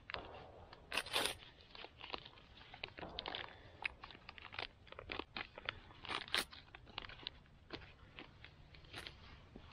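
Dry kindling snapping and crackling in irregular sharp cracks while a small wood-burning camp stove is being lit. The loudest snaps come about a second in and again around six seconds in.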